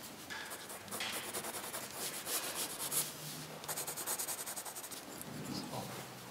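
Graphite pencil shading on drawing paper: rapid, short scratchy hatching strokes of the lead rubbing across the sheet.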